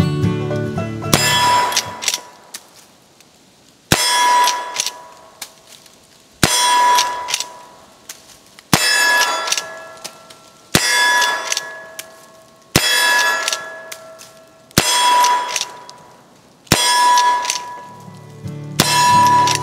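Original Henry lever-action rifle in .44 WCF (44-40) fired nine times, about one shot every two seconds, each shot followed by a ringing metallic clang that dies away, like a struck steel target. Acoustic guitar music fades out at the start and returns near the end.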